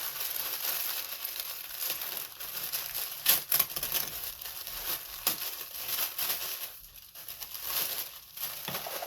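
Paper packaging crinkling and rustling as a gift box is unwrapped by hand, with a few sharper crackles about three and a half seconds in.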